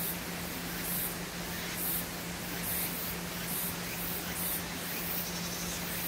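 Mountain stream water rushing steadily in a valley, with a high-pitched chirp repeating about once a second over it.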